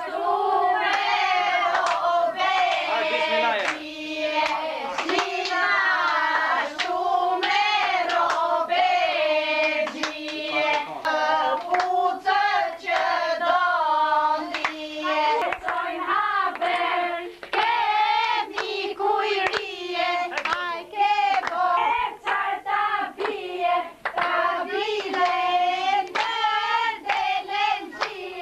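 Women singing a traditional Albanian wedding song with wavering, ornamented melody lines, accompanied by a steady beat of hand-clapping.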